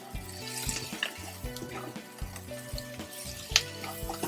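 A spatula stirring a sizzling filling of onions, tomatoes, chickpeas and corn in a non-stick frying pan, with scattered scrapes and knocks against the pan and one sharper knock near the end, over background music.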